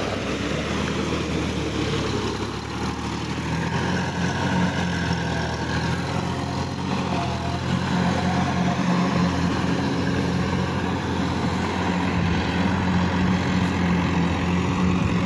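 Sonalika DI-50 RX tractor's diesel engine running steadily under load as it drives a rotavator through flooded paddy-field mud.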